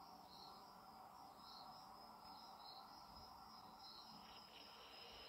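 Near silence: a faint steady hiss with soft, high chirps repeating about once a second, like distant insects.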